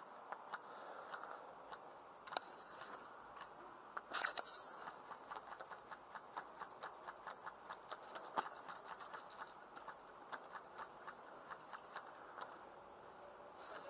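Airsoft replica firing: a fast, even run of sharp clicks at about five a second, with two louder cracks before the run begins.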